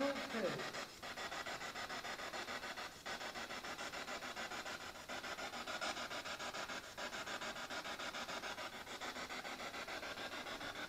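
Ghost-hunting spirit box sweeping through radio stations: a steady static hiss chopped into rapid, even pulses.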